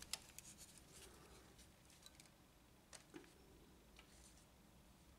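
Near silence with a few faint, scattered plastic clicks and taps from the scanner carriage being handled and turned over.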